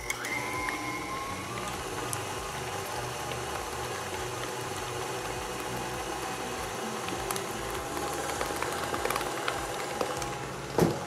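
KitchenAid Classic tilt-head stand mixer running steadily, its flat beater whipping butter and peanut butter in the steel bowl, with a motor whine that climbs slightly in the first second and a half as it comes up to speed. A brief louder sound near the end.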